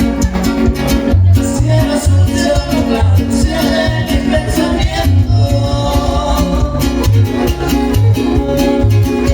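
Latin American music with guitar over a steady, regular bass beat.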